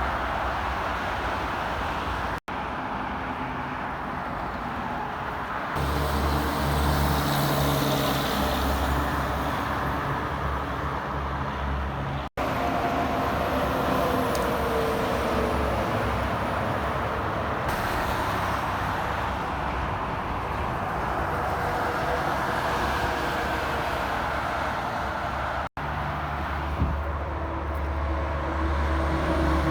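Highway traffic with heavy trucks passing, diesel engines running and tyres rolling on the road. Three abrupt cuts join several short clips.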